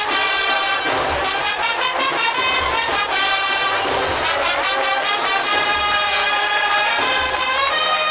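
A Spanish agrupación musical playing a Holy Week processional march: massed cornets, trumpets and trombones sounding sustained chords over drums, with regular drum strokes and a deep bass drum beating about once a second.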